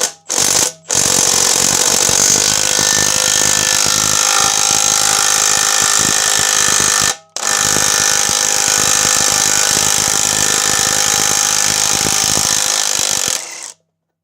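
Milwaukee M12 Stubby 3/8-inch cordless impact wrench hammering on a rusted suspension bolt. It gives two quick blips, then a long run of about six seconds, a brief pause, and another run of about six seconds as the seized bolt is worked out.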